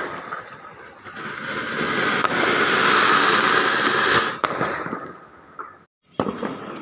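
Ground fountain firework (anar) spraying sparks: a hiss that swells over a couple of seconds into a loud rushing spray with a few sharp crackles, then drops off suddenly about four seconds in and fades.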